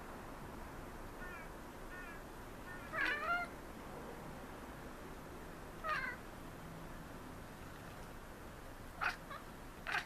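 Maine Coon cat chattering at birds: short chirping calls, the loudest about three seconds in, another around six seconds and two brief ones near the end.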